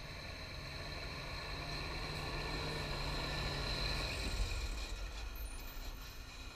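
Loaded tipper truck's diesel engine running as the truck drives past close by, getting louder up to about four seconds in and then fading as it moves away.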